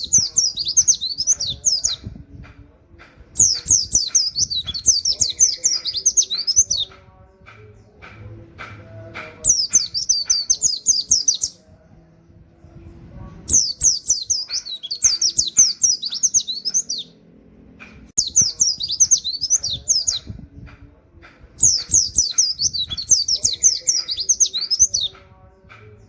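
A white-eye (pleci) singing in rapid, high twittering bursts in the 'nembak' style, laced with canary-like 'wit wit' notes. Six bursts of two to three seconds each, with softer chips and clicks in the gaps between them.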